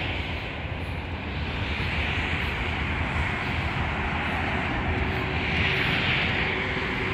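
Steady outdoor rushing noise with a low rumble, and a faint engine drone coming in about halfway through.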